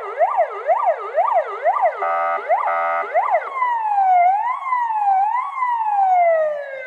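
Police-style electronic siren fitted to an armoured Rolls-Royce Cullinan, sounding through its siren speaker. It cycles through its tones: a fast yelp of about three sweeps a second, then a brief steady horn-like blare about two seconds in, then a slower wail that rises and falls and finally glides down as it winds off.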